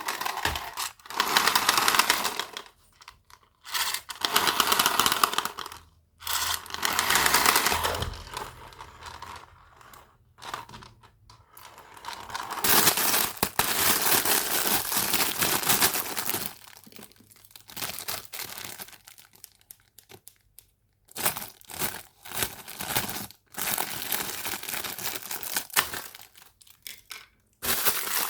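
Toy packaging being crinkled and torn open by hand, in bursts of a second or two with short pauses between.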